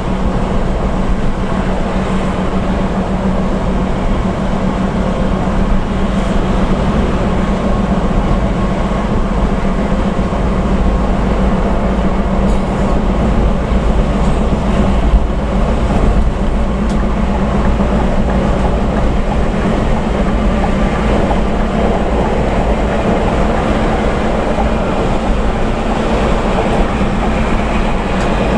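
Bus engine and tyre-on-road rumble heard from inside the bus cruising at highway speed: a steady low drone with a constant hum.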